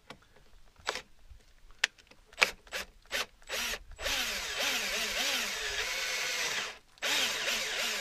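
Cordless drill boring a hole through a trailer's aluminium skin into the wood behind it. After a few sharp clicks and short spurts, the motor runs steadily from about four seconds in, its speed rising and falling as the bit bites. It stops briefly near the end and starts again.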